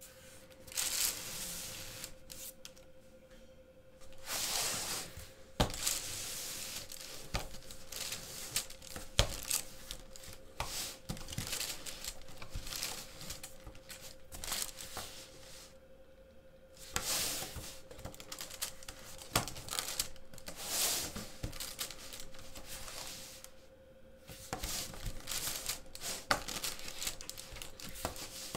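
LEGO plates hinging and sliding against each other as the pattern is worked by hand: spells of plastic scraping and rustling broken by sharp clicks.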